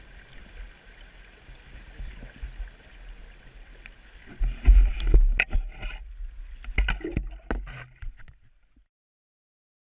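Flowing river water and rain make a steady hiss. From about four seconds in, loud low rumbling and sharp knocks on the microphone come over it, then all sound stops abruptly shortly before the end.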